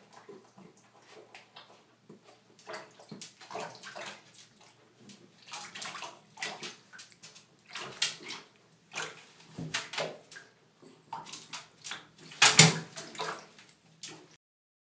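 A small dog's claws scrabbling and scratching on the sides and floor of a bathtub in irregular bursts, with a louder knock about twelve and a half seconds in as it clambers over the tub's rim.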